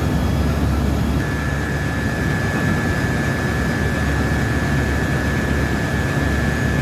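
Steady, loud machinery noise of a ship's engine room: a constant roar with a thin, steady high whistle joining about a second in.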